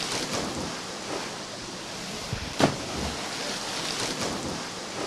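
Waterfall water pouring steadily, an even rushing hiss, with one sudden loud hit about two and a half seconds in.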